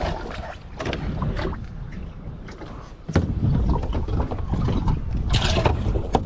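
Wind buffeting the microphone in a heavy low rumble, with several sharp knocks and splashes from fishing out of a small boat.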